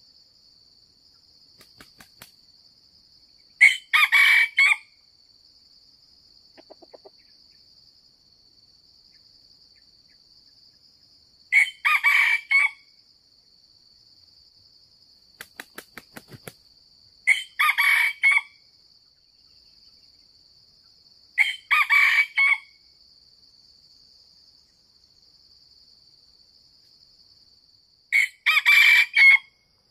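Red junglefowl rooster crowing five times, each crow about a second long and several seconds apart, over a steady high buzz of insects.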